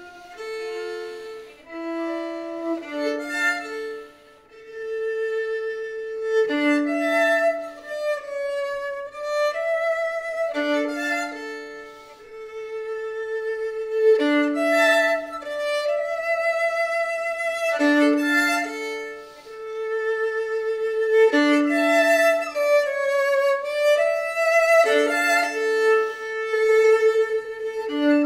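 Solo violin, bowed, playing a slow phrase that keeps returning: a low note swells into a held higher note with vibrato, recurring about every four seconds.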